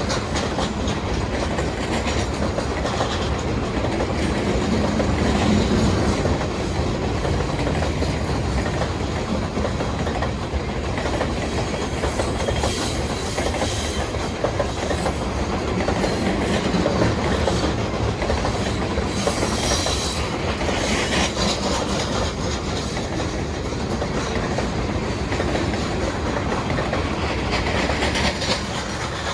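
Old rusty freight cars rolling past on the rails, a steady rattling clatter of wheels and cars, with a few brief squeaks and squeals near the middle and end.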